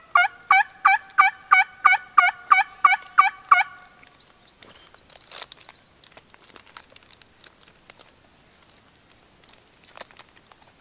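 A series of about eleven turkey yelps, evenly spaced at about three a second, lasting three and a half seconds. A faint high bird trill follows about five seconds in.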